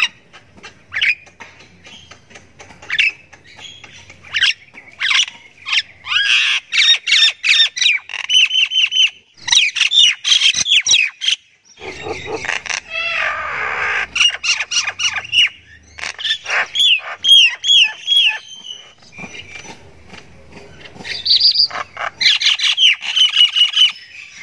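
Common myna calling: scattered short chirps build into quick runs of whistled, chattering notes. About halfway through comes a harsh, rasping squawk, and then more whistled runs follow.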